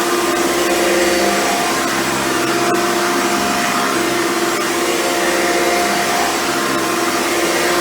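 Hoover Runabout vacuum cleaner running steadily, its motor tone wavering slightly as it works.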